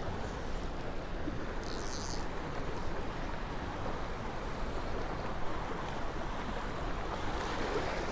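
Steady rush of river water running through rapids, with a brief high rasp about two seconds in.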